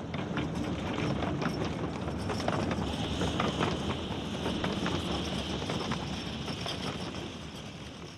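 Miniature railway passenger coaches rolling past, their wheels rumbling and clicking over the rail joints. A high steady squeal joins from about three seconds in, and the sound fades near the end.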